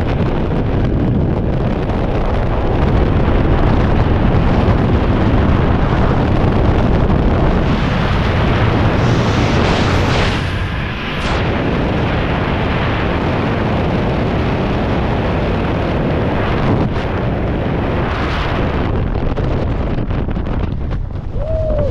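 Freefall wind buffeting a skydiver's helmet-camera microphone: a dense, steady rush with a short dip about ten seconds in.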